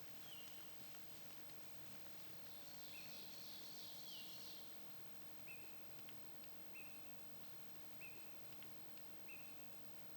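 A small bird calling in the woods: a short, high note repeated about once a second, each dipping in pitch at its end, with a brief high hiss partway through.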